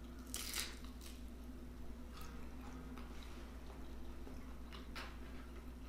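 Quiet eating sounds from a hot veggie egg roll: soft chewing with a few faint clicks, and one short puff of breath about half a second in, blowing on the hot food.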